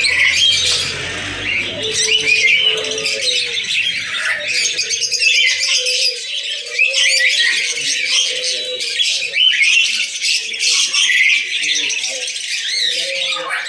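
Many caged birds chirping and squawking at once in a dense, continuous chorus of short high calls.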